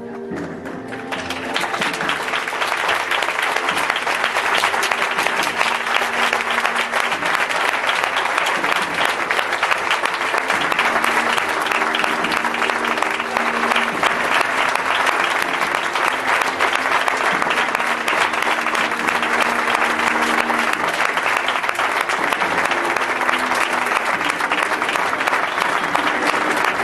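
Audience applauding, swelling over the first couple of seconds and then holding steady, with music playing underneath.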